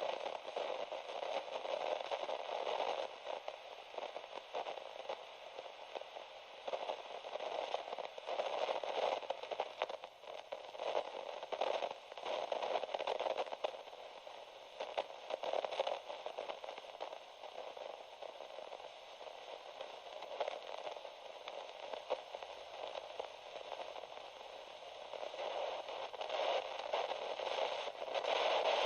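Broken radio's static: a crackling hiss, thin and tinny, that swells and fades every few seconds.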